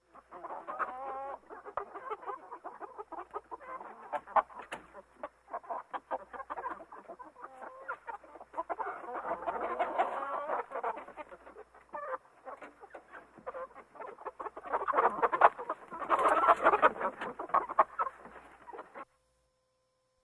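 Birds calling in a dense run of many short, rapid calls, louder in two stretches in the middle and near the end, stopping abruptly about a second before the end.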